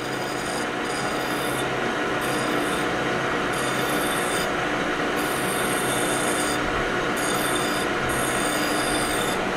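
Hand file rasping against a spinning O1 tool steel bar in a lathe, breaking the sharp edge in about six strokes, over the steady running of the lathe.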